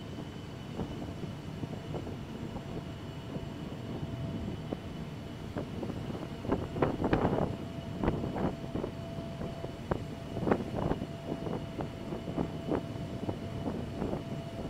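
Ferry vehicle deck: a steady low rumble of the ship's engines with a constant mechanical whine, and irregular knocks and clatter from about six seconds in.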